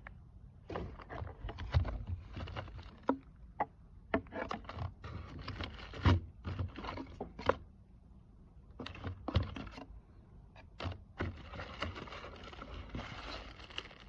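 Hands handling a backup camera kit's box and parts: irregular knocks, taps and scrapes, turning into a denser rustle near the end.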